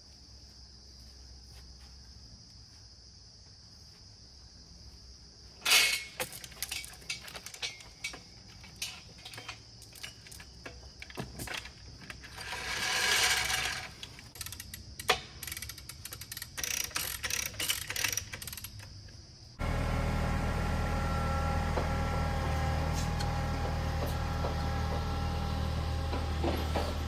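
Insects chirring steadily. From about six seconds in, a log cart's winch clanks and ratchets irregularly as it lifts a white oak log. About two-thirds of the way through, this gives way abruptly to an engine running steadily.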